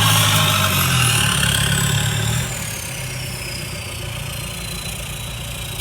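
Mahindra Roxor's four-cylinder turbo diesel running through a 2.5-inch dump pipe straight off the turbo, coming down from a rev and settling to a quieter idle about two and a half seconds in; it sounds like a tractor. A thin high whistle falls slowly in pitch throughout.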